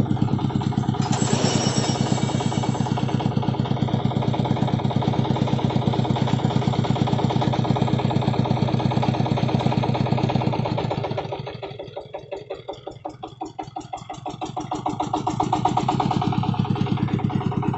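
Single-cylinder diesel engine of a công nông two-wheel tractor chugging steadily as it drives a front-mounted cable winch, pulling the loaded cart up a steep rocky slope. The engine note drops and quietens for a few seconds about two-thirds of the way through, then picks up again.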